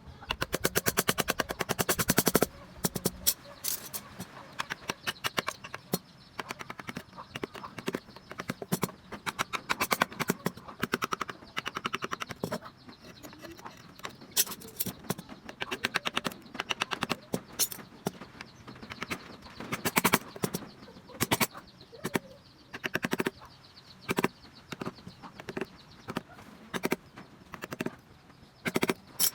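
Repeated sharp taps of a mallet on a wood-carving chisel cutting into wood. A fast, even run of taps comes in the first couple of seconds, then irregular single strikes of varying force.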